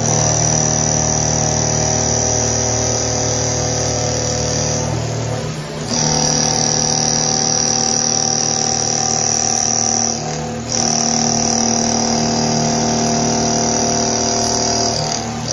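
CNC milling machine's end mill cutting steel around the edge of a round part: a steady high-pitched machining whine with lower hum tones beneath it, dipping briefly about five seconds in, again about ten seconds in, and near the end.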